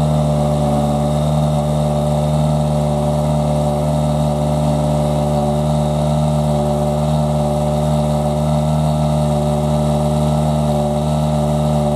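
Toyota Yaris WRC rally car's 1.6-litre turbocharged four-cylinder engine idling steadily at a fixed pitch.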